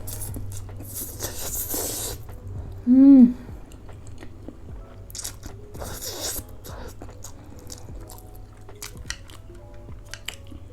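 Close-miked eating of spicy Korean noodles: wet chewing with many small clicks and two hissing slurps of noodles. A short voiced 'mm'-like sound, rising then falling in pitch, comes about three seconds in and is the loudest thing heard. Faint background music plays underneath.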